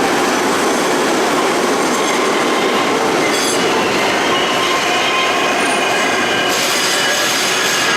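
Budd-built R32 subway train running through the station: a steady, loud rail rumble with thin, high wheel squeal over it.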